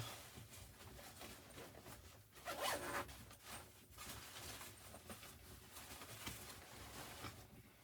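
A zipper being pulled in several short rasping strokes, the loudest a little over two seconds in.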